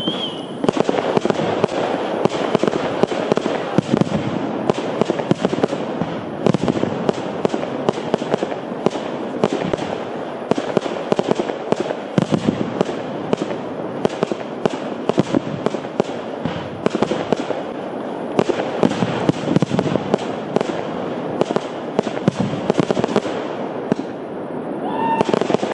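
Fireworks display: a rapid, continuous stream of bangs and crackles from shells bursting in the air, thinning a little near the end.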